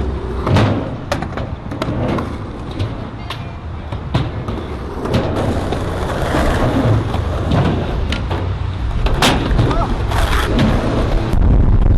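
Skateboard wheels rolling on concrete with a low rumble, broken by repeated sharp clacks and knocks of the board.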